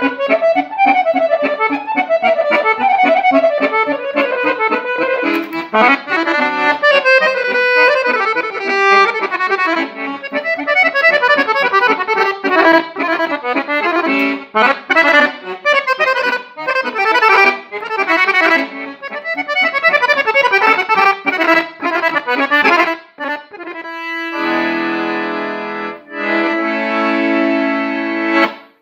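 Solo Guerrini piano accordion playing a Serbian kolo dance tune: quick running melody notes over a steady bass-and-chord accompaniment. It closes with a few long held chords about 24 seconds in, then stops abruptly.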